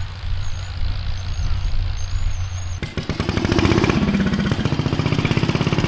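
Vintage tractor engines running. A low, steady engine hum gives way abruptly about three seconds in to a louder engine with a fast, even firing beat whose pitch drops slightly.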